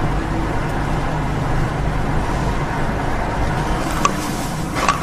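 Steady rumble of the car's engine and tyres on the road, picked up by a dashcam inside the car, with a couple of short sharp clicks near the end.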